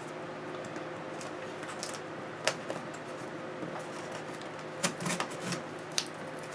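A few sharp clicks and taps from a cardboard package being handled, scattered with a cluster about two thirds of the way in, over a steady low hum.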